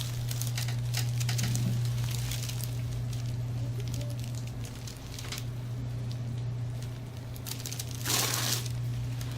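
Hands massaging a person's shoulders and back: soft rustling and crinkling of skin and fabric, with a louder brushing rub about eight seconds in, over a steady low hum.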